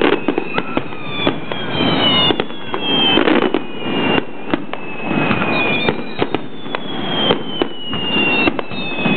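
Fireworks going up in a continuous barrage: many sharp bangs of shells bursting, close together, with whistling fireworks sliding slowly down in pitch over them.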